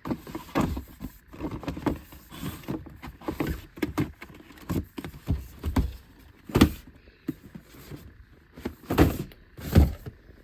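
Shoes being handled and set down: irregular rustling and knocks, with a few louder thumps about six and a half seconds in and twice near the end.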